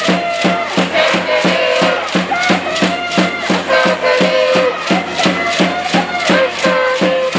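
Rhythmic cheering music from the stands: a fast, steady beat of drum and clapper strikes, about four a second, under a held melody.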